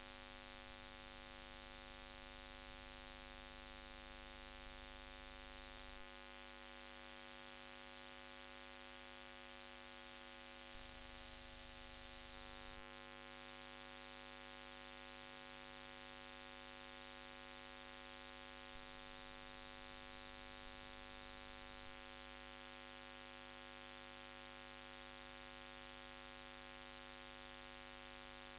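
Faint, steady electrical hum and buzz, a mains-type interference hum picked up in the recording's audio line, with no street sound heard over it.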